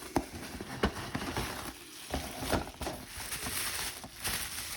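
Packaging being handled as a model kit box is opened: rustling and crinkling of bubble wrap and cardboard, with a few light knocks.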